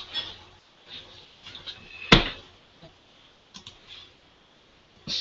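Scattered clicks and knocks of something being handled, with one sharp knock about two seconds in.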